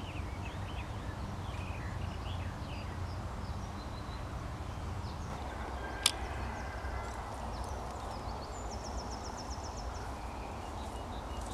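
Small birds chirping and singing over a steady low rumble of outdoor noise, with one sharp click about six seconds in and a fast high trill of about ten notes near the end.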